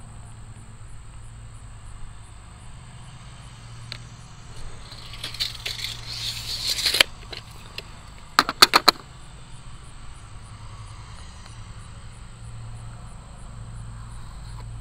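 Hand tools being worked on a vinyl post wrap while it is marked for a cut: a scratchy rubbing builds for about two seconds and stops abruptly, then a quick run of four sharp clicks. Crickets chirp steadily in the background.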